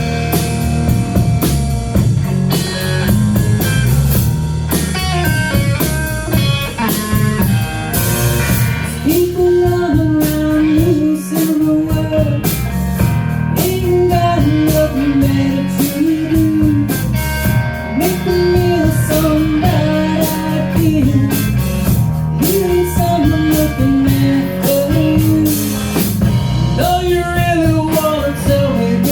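A rock band playing a blues-rock song live, with drums, bass and electric guitar. From about nine seconds in, a short melodic phrase that bends in pitch repeats over and over.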